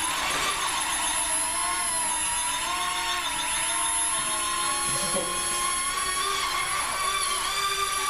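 Star Wars Millennium Falcon toy quadcopter in flight, its small motors and propellers whining steadily, the pitch wavering up and down as the throttle changes. A brief low thump about five seconds in.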